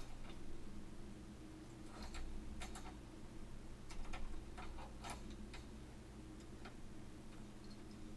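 Faint, irregular light clicks and taps from objects being handled close to the microphone, about a dozen spread unevenly, over a steady low hum.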